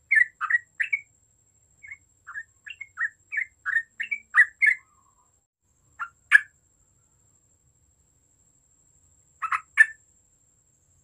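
Yellow-vented bulbul singing: a quick run of short chirping notes, about three a second, through the first five seconds, then a pair of notes about six seconds in and another pair near the end, with silence between.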